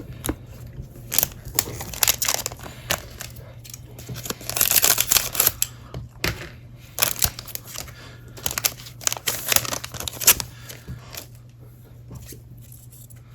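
A trading card pack's wrapper being torn open and crinkled in irregular bursts of tearing and rustling, heaviest about five seconds in and again around ten seconds in.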